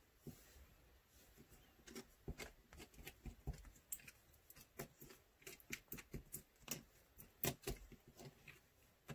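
Small plastic spoon clicking and scraping against the inside of a small plastic cup while glitter is stirred into liquid resin: faint, irregular little clicks that come thicker from about two seconds in.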